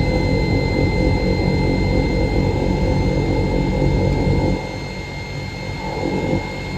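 Matsuura horizontal machining center running under power: a steady mechanical hum with a thin, constant high whine over it. It dips in level for about two seconds past the middle.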